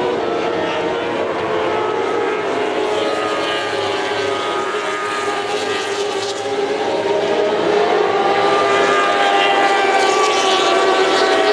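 Engines of a pack of racing motorcycles, many revving at once with overlapping pitches that rise and fall. The sound grows louder about seven seconds in as the field comes closer.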